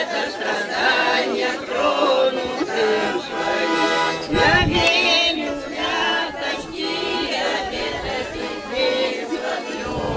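A group of people singing a song together in chorus. A brief low rumble about four seconds in.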